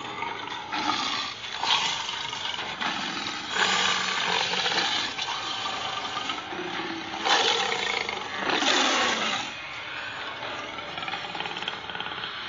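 Big cats growling and roaring as if fighting, in a run of rough, rasping bursts. The loudest snarls come about seven and nine seconds in, then it settles to lower growling.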